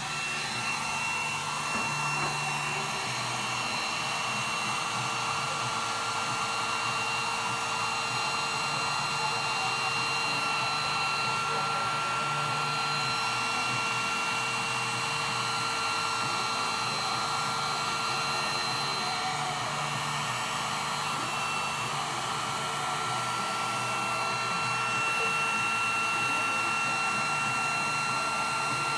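Handheld electric heat gun running steadily on wet epoxy resin: a constant rush of blown air with a faint steady whine from its fan motor.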